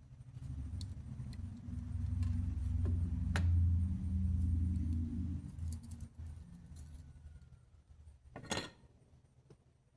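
Low, uneven rumbling of handling noise with a few sharp clicks, then a short clatter near the end, as small electronic parts and tools are handled on a workbench.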